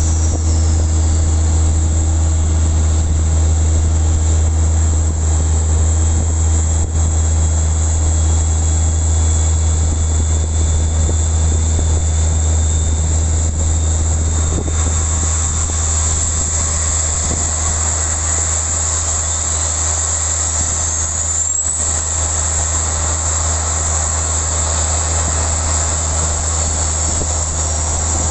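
Steady loud low hum of an Airbus A350-900 pushback in progress, with a faint high whine that rises in pitch about two-thirds of the way through.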